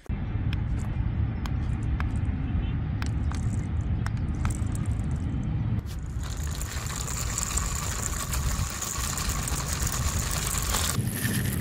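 Homemade toy buggy's two small DC motors running as it drives, with a low rumble and scattered clicks. From about six seconds in, a steady high whine comes in, and it changes again near the end.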